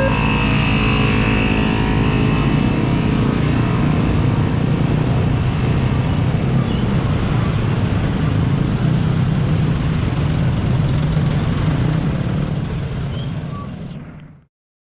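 Steady, loud rumble of heavy traffic over a railway level crossing, fading out near the end.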